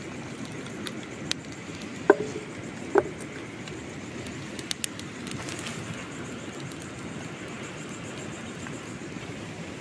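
Small wood fire crackling under a frying pan of beaten egg, with a steady hiss and scattered ticks. About two seconds in come two sharp metallic clanks, a second apart, as the pan is set down on the hearth stones.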